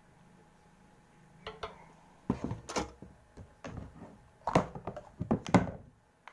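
Plastic food container and its snap-on lid being handled: a run of sharp knocks and clicks starting about two seconds in, loudest near the end.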